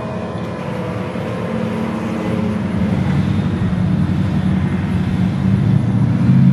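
A procession of 1990s Chevrolet Impala SS and Caprice sedans running at parade pace, their V8 engines a steady low hum that grows steadily louder as the line of cars approaches.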